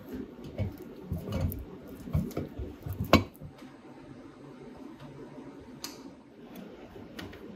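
Small metal clicks and taps as a screwdriver and screws fasten the metal handle bracket onto an antique iron's body, several close together with the sharpest click about three seconds in, then a couple of lighter ticks near the end.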